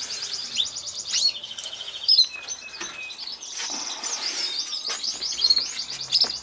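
Caged domestic canaries singing: fast trills and rolling runs of rapidly repeated high notes, with a sharp click about two seconds in.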